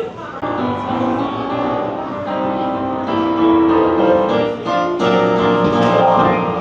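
Piano music starting about half a second in, several notes sounding together and changing in quick succession, as melodrama accompaniment.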